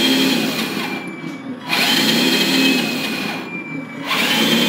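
Simulated truck engine sound from the LESU 1/14 RC tractor truck's sound module, revved in three throttle blips. Each blip rises and then falls in pitch, and the third begins near the end.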